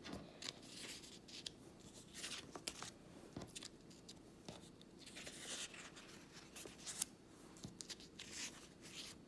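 Faint rustling and sliding of paper sticker sheets being handled and moved on a table, in irregular short scrapes.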